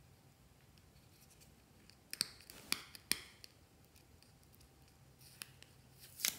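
Plastic Almay eyeshadow compact being handled and its pan pried at with a small pointed tool. A few sharp clicks and short scratches come about two to three and a half seconds in, a single click a couple of seconds later, and a louder cluster of clicks near the end.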